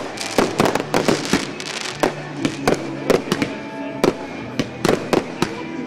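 Wedding fireworks going off: a rapid, irregular run of sharp bangs and cracks, several a second, over a romantic ballad playing in the background.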